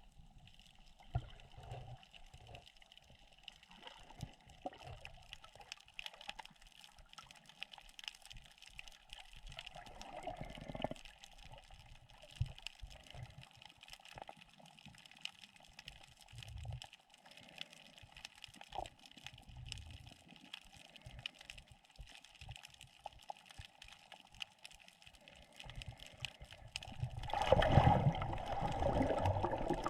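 Underwater sound picked up by a submerged camera while snorkeling: a steady crackle of many small clicks over faint water noise. Near the end the water noise grows louder into a rushing, gurgling sound.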